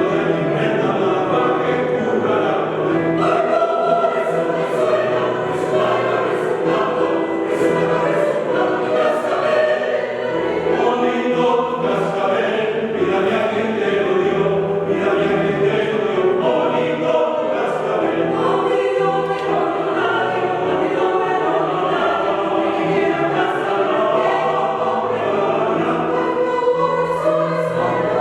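A choir singing continuously in several voice parts, with the sung words clearly present.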